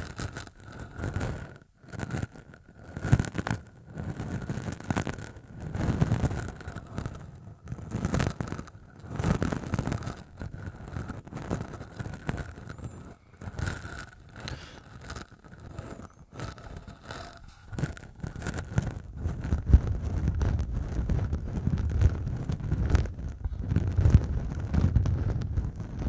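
Short, rough beard stubble scraped directly against a pair of small microphone capsules, giving a scratchy rasp with a deep rumble from the contact. The strokes come as separate swells every second or two at first, then become denser and more continuous in the second half.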